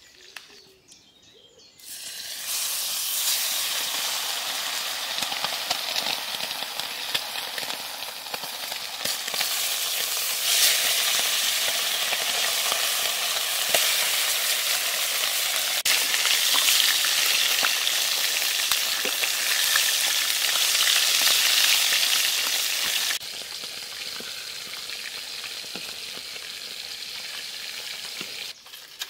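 Pieces of gania (snake fish) frying in hot mustard oil in a kadai: a loud, dense, steady sizzle that starts suddenly about two seconds in, turns quieter about two-thirds of the way through, and stops just before the end.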